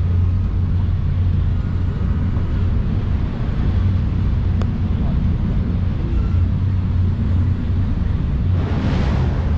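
Twin V8 engines of a jet boat running steadily, a deep, even low hum, with a brief rush of noise near the end.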